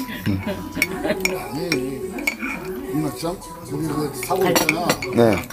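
A metal teaspoon stirring and clinking against a ceramic coffee mug, a run of sharp, irregular clinks, with voices in the background.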